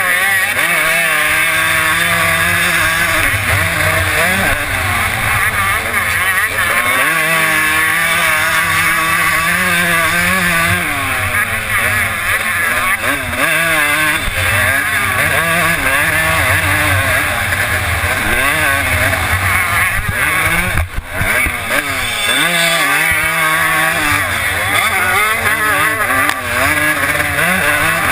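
Suzuki RM250 single-cylinder two-stroke motocross engine at race pace, revving up and falling back over and over as the rider works the throttle and shifts, with a brief throttle cut about three-quarters of the way through.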